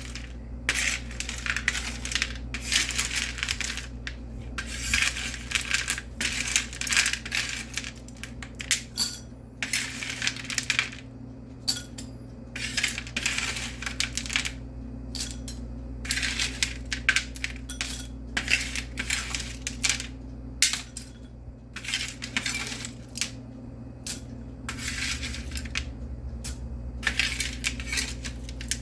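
Broken pieces of hard rock candy clinking and rattling against each other and their container in repeated shakes as they are tossed in confectioners' sugar. The shakes come in bursts with short pauses between them.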